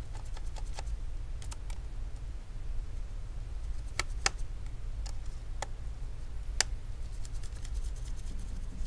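Small sharp clicks and ticks from gloved hands handling a laptop LCD panel's metal frame and its small mounting screws. The clicks are scattered, with a quicker run of light ticks near the end, over a steady low hum.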